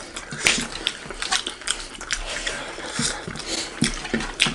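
Close-miked eating by hand: wet chewing and lip smacking, with many short irregular clicks and squishes as fingers mix rice and curry on metal plates.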